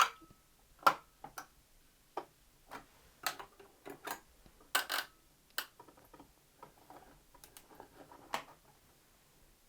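Irregular clicks and creaking of an AM5 CPU socket's metal retention bracket and lever being pressed shut on a motherboard, the sharpest clicks about a second in and around five seconds in.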